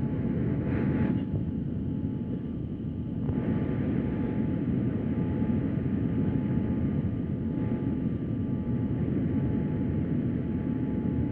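Airbus A320 cabin noise on approach: a steady low roar of engines and rushing air, with thin steady whine tones above it.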